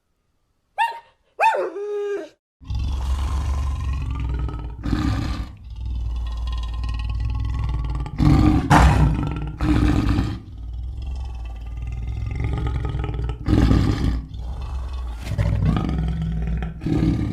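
A few short, high, sliding yelps or whines, then a deep, rough animal roar or growl that starts abruptly and goes on with several louder swells.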